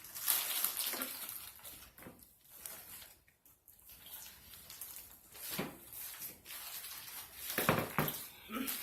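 Wet chewing and lip-smacking close to the microphone as a burger is eaten, in irregular clicks and smacks with a louder cluster near the end.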